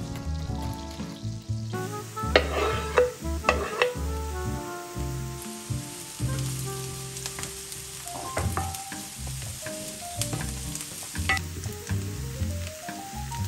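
Food frying in a pan, with a steady sizzle that grows brighter about halfway through. A couple of stirring scrapes come about two seconds in. Background music plays throughout.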